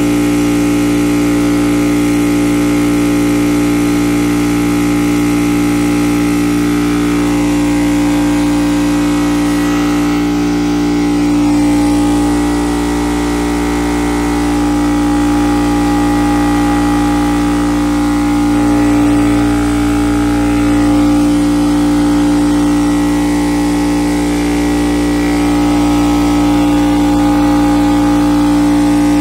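Craftsman air compressor running steadily: its electric motor and piston pump giving a steady, loud hum with one strong tone.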